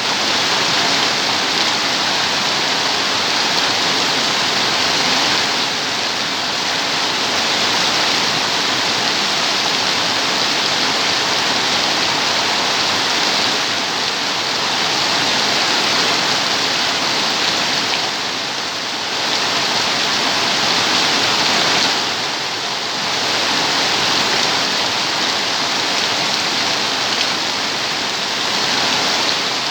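Steady heavy rain, a dense even hiss of drops, easing slightly twice near the end.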